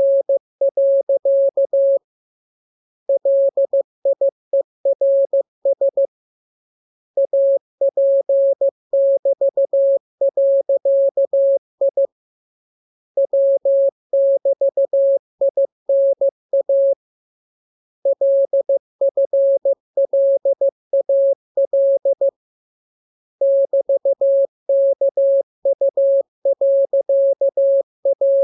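Morse code practice signal: a single steady beep keyed on and off in dots and dashes, sending groups of characters a few seconds long with pauses of about a second between them.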